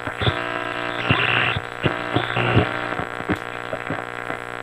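1937 Philco 37-84 four-tube cathedral radio tuned between stations: a steady hum from the loudspeaker, broken by scattered crackles of static and a few brief high whistles as the dial is turned.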